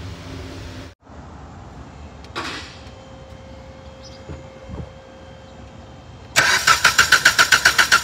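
A 2013 Dodge Journey's engine being cranked over by the starter without catching, the crank-no-start fault under diagnosis. It starts abruptly after about six seconds of faint sound, as an even chug of about six compression pulses a second.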